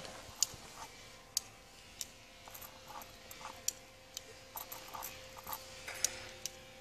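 Light, irregular metallic clicks of a single-action revolver being handled and loaded at the cylinder, about a dozen over several seconds.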